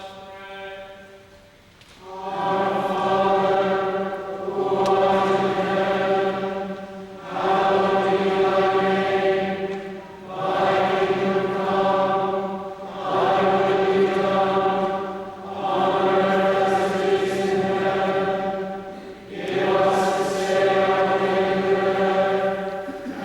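Choir chanting in unison on a steady reciting tone, in phrases of a few seconds each with short breaks between them.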